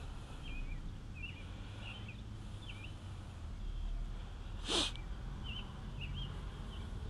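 Small birds chirping in short, quick notes in the background over a steady low outdoor rumble, with one short sharp hiss about two-thirds of the way through.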